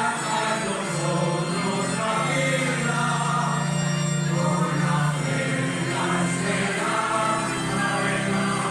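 A church choir singing a hymn in held, sustained notes, over a steady low note that lasts throughout.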